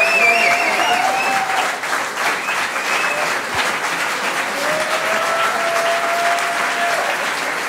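Concert audience applauding, with cheering over the clapping: a few long held calls rise above it. The applause slowly fades near the end.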